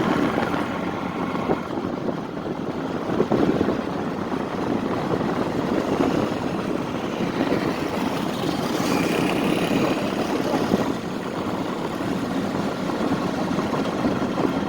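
Steady engine noise from motor vehicles.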